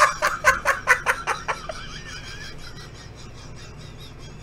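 A man laughing hard, a rapid string of 'ha' bursts that dies away after about a second and a half.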